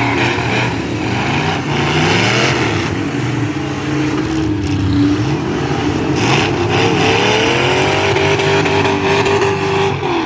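Engines of several demolition-derby trucks and SUVs revving hard, their pitches rising and falling and overlapping.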